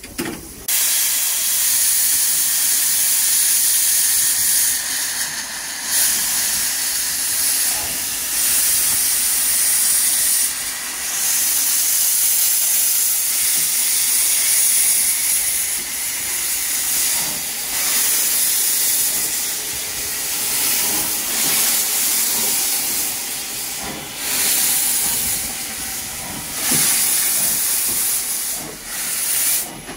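Steam hissing steadily from an industrial 0-6-0 saddle tank steam locomotive, starting about half a second in and dipping briefly a few times.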